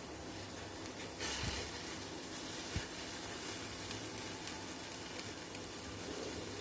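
Pot of water heating on the stove toward the boil, a steady sizzle and hiss with a brief louder hiss about a second in.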